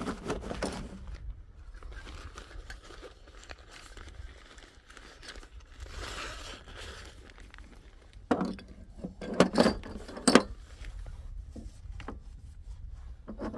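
Handling noises: rustling and crinkling, then a cluster of several sharp knocks past the middle, over a steady low rumble.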